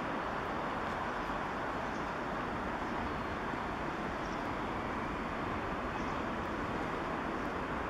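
Boeing 787 jet airliner on final approach with its landing gear down: a steady rushing jet-engine noise, with no clear rise in loudness.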